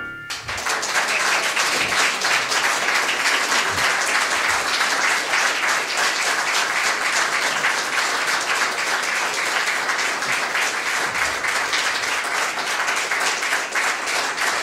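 Audience applause: many hands clapping in a dense, even crackle that starts about half a second in, just as the last piano notes die away, and keeps up at a steady level.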